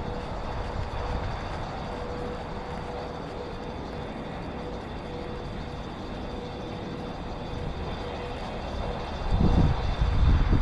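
A steady outdoor rushing noise with a faint steady hum. About nine seconds in, gusts of wind start buffeting the microphone.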